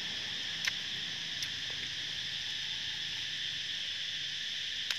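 Steady, high-pitched drone of an insect chorus, with three short sharp clicks.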